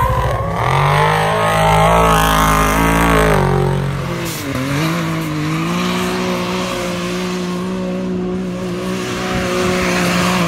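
Side-by-side UTV engine revving, its pitch climbing for about three seconds, then, after a sudden break, running at steady high revs with one brief dip in pitch.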